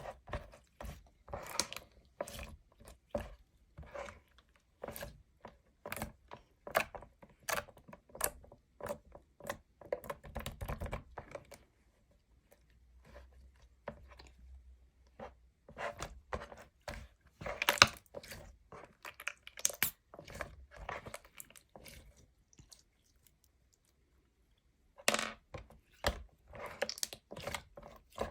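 Clear slime being squished and pressed by hand, giving a run of short sticky pops and clicks, a few a second, with a pause of a couple of seconds near the end.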